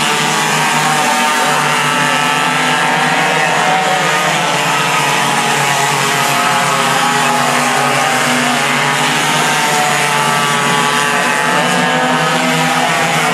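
Several racing kart engines running hard together at high revs, their pitches overlapping and rising and falling as the karts lap the track.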